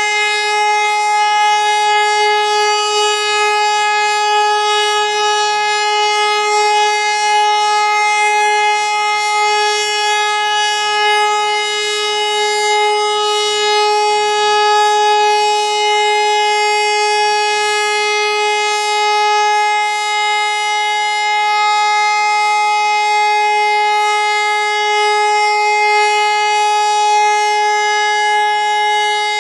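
HLS573 high-performance siren holding one steady, unwavering tone during a siren test: the continuous tone of the Austrian 'Warnung' (warning) signal.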